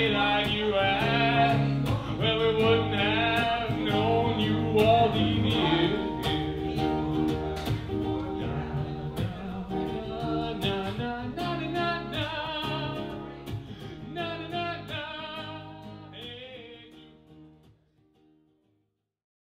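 Live acoustic guitar strummed under a man's singing, the whole performance fading out to silence near the end.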